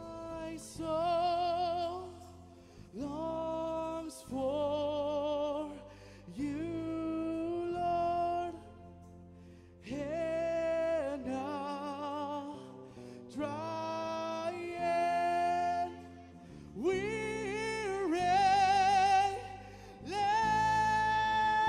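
Live worship band music: a singer holds a series of long, wavering notes with short breaks between the phrases, over keyboard and band accompaniment.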